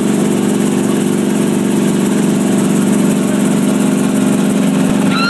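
Helicopter engine and rotor running steadily, heard from inside the cabin: a constant drone made of several even tones.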